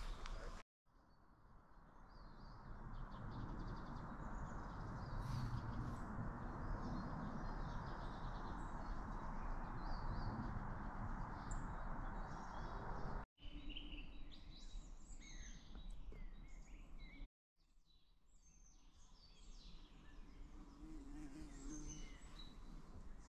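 Forest ambience of small songbirds chirping and calling, with the calls busiest in the second half. For the first half they sit over a steady rushing noise. The sound drops out briefly three times.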